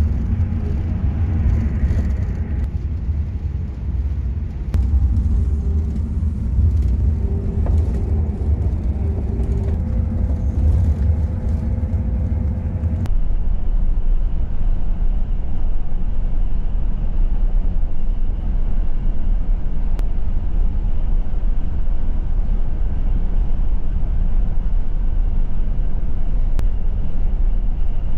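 Scania double-decker coach moving at speed: a steady low engine and road rumble heard inside the cabin. About halfway through it cuts abruptly to a more even rush of road and wind noise.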